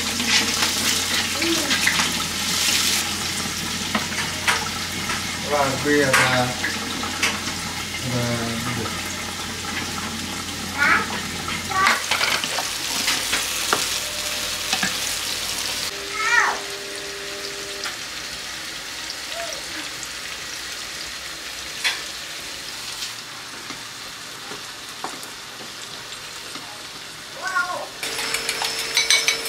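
Food sizzling as it fries in a pan, a steady hiss, with short high voice sounds breaking in now and then.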